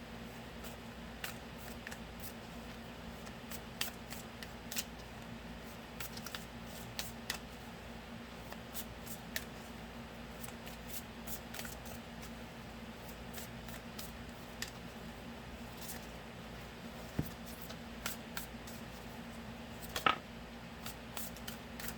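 Tarot cards being shuffled by hand: scattered soft clicks and ticks of card edges, with a sharper snap about twenty seconds in.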